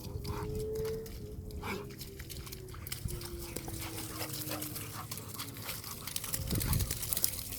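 Big Cane Corso dogs making dog noises as they roughhouse with each other.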